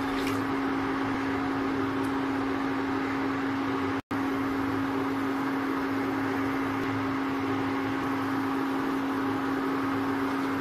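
Steady electric hum with a fan-like whir from an induction cooktop running under a pan, with a light splash of water poured into the pan right at the start. The hum cuts out for an instant about four seconds in.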